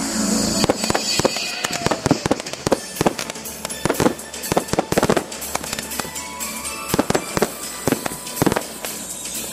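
Aerial fireworks bursting overhead: a quick, uneven run of sharp bangs, several a second at their densest, over a constant hiss and crackle.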